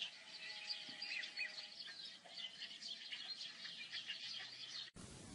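Small birds chirping, many short quick calls overlapping in a steady chatter, which stops suddenly near the end.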